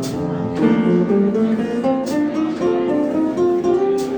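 Jazz guitar and piano playing an instrumental chorus of a slow ballad, a melody line of single notes over sustained chords, with no singing.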